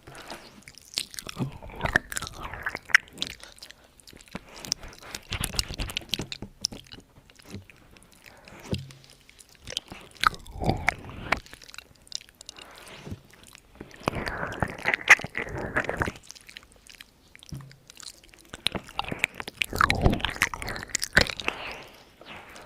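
Close-miked ASMR mouth sounds: wet clicks and smacks of the tongue and lips, coming in clusters every few seconds.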